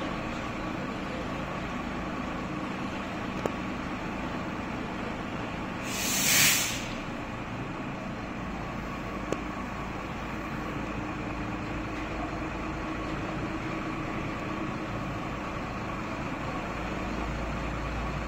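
Diesel engine of a truck with a lorry-mounted crane running steadily while the crane holds a lamp post, with one loud short hiss of released air about six seconds in.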